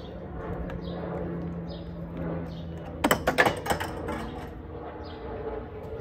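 Sharp clicks and knocks of plastic and metal parts about three seconds in, as a 2003 Saab 9-3's air box and intake hose are worked loose by hand. A steady low hum comes before them.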